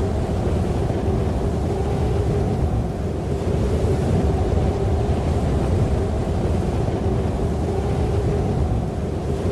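Steady, loud rushing noise with a constant hum under it.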